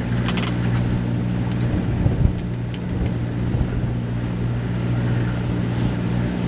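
A sailboat's engine running steadily at a constant speed, with wind and water noise around it.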